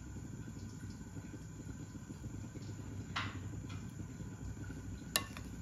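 Metal spoon spreading egg-mayonnaise filling on sandwich bread: a soft scrape about three seconds in and a sharp click near the end, over a steady low background hum.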